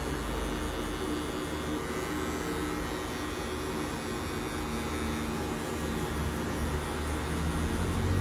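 Electric hair clipper fitted with a 0.5 guard, buzzing steadily as it cuts short hair to blend a fade.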